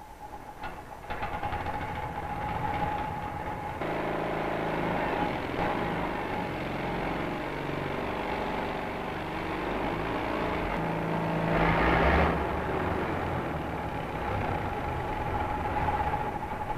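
Caterpillar engine starting and running steadily after a few clicks. The engine sound comes in about a second in, grows stronger a few seconds later and swells briefly once near the end.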